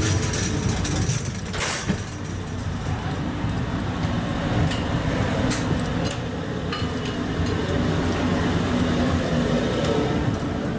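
Steady low rumble and hum along a jet bridge, with a few faint clicks and knocks.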